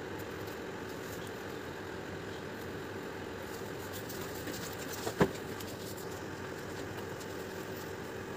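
Steady mechanical hum with one sharp click about five seconds in.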